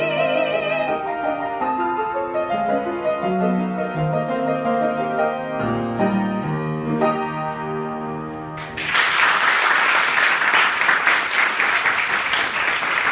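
A woman's classical singing voice ends on a held note with vibrato about a second in. The grand piano plays the closing bars alone, and then the audience applauds for the last four seconds.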